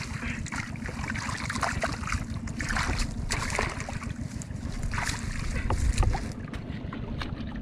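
Water splashing and sloshing in irregular bursts over a steady wind rumble on the microphone. The splashing thins out about six seconds in.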